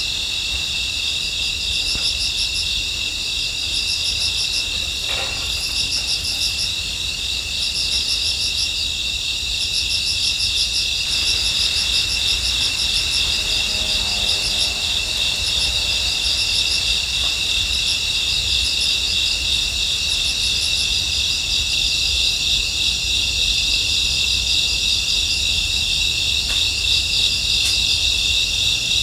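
Night chorus of crickets and other insects: a steady high trill, with another insect chirping in short repeated bursts over it, and a low rumble underneath.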